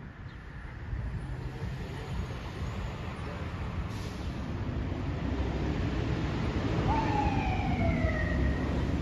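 Fire engine driving off on an emergency run: a low rumble that grows louder, with one siren tone falling in pitch about seven seconds in, lasting about a second and a half.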